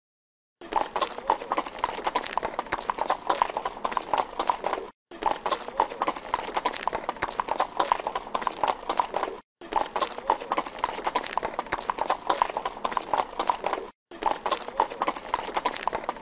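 Horse hooves running fast: a dense, rapid patter of hoofbeats. It starts about half a second in and breaks off briefly three times as the same short stretch repeats.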